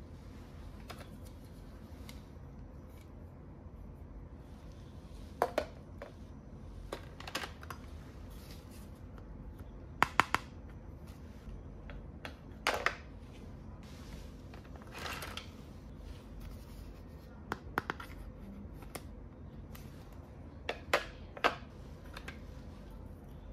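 Hard plastic toy pieces clicking and clacking as they are lifted out of a plastic carry case and set down on a plastic tray: scattered sharp clicks, often in quick pairs, with a short scrape about midway.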